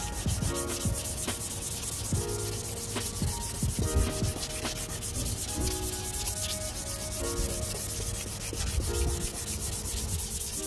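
320-grit wet sandpaper rubbed back and forth by hand over a wet polycarbonate headlight lens, cutting through the old oxidized clear coat. Steady scratchy rubbing.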